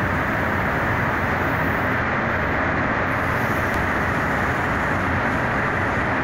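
Steady, loud rush of air in a paint spray booth with its ventilation fans running.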